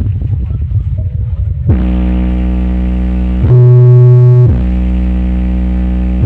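Large street sound system with subwoofers playing long held synthesizer bass notes, loud and deep. It opens with a rough, pulsing low rumble; under two seconds in a steady chord sets in, jumps up in pitch for about a second midway, then drops back.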